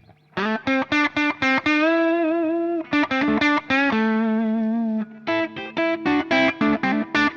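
Harley Benton SC-DLX electric guitar on its middle pickup position, played through an overdriven Mesa Boogie Mark IIC+ amp preset on a Hotone Ampero One. It plays a lead line of short picked notes with two held notes given vibrato, then a quick run of short notes near the end.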